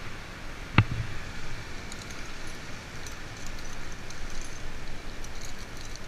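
A climber moving in a rock crack, heard close on a body-worn camera: steady rustling, a single sharp knock about a second in, then faint high clicks scattered through the rest.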